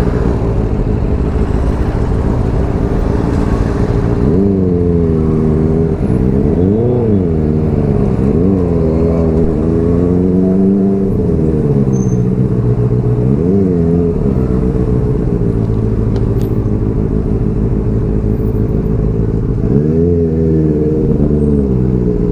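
Benelli TNT 300 parallel-twin engine with an Ixil aftermarket exhaust, running steadily and then revved up and down again and again from about four seconds in, with a few more quick revs near the end.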